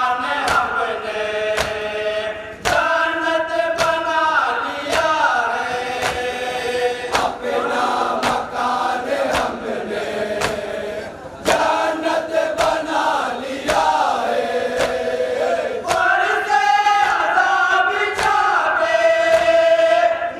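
Men chanting a noha, a Muharram lament, in group unison, with sharp regular slaps of chest-beating (matam) keeping time about one and a half times a second.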